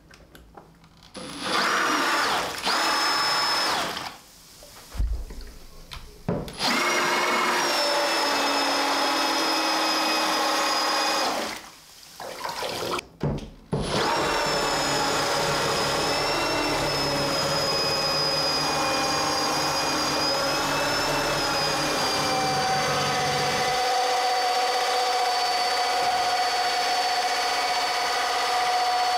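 Cordless power drill driving a 3D-printed gear pump submerged in a bathtub. It runs with a steady high whine in three stretches: briefly about two seconds in, again for about five seconds, then without a break for the last fifteen seconds.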